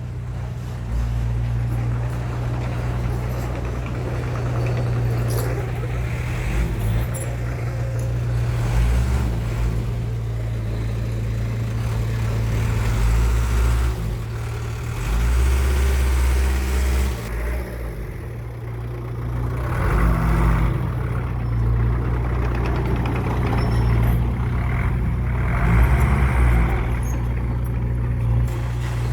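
Heavy diesel machinery engine running continuously, its low rumble swelling and easing several times as it works under load.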